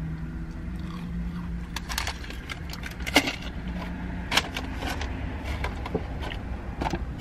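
Chewing a fried jalapeño bite, with scattered short crackles and clicks, the sharpest about three seconds in, over a steady low rumble inside a car.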